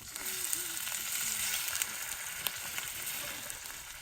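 Food frying in a hot pan: a sizzle that starts suddenly as the food goes in, then keeps up steadily.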